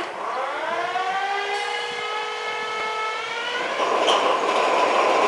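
BB 67400-class diesel locomotive engine starting up: a whine that rises in pitch for about a second and a half, then holds steady. About four seconds in it gives way to a louder, rougher running sound as the engine catches.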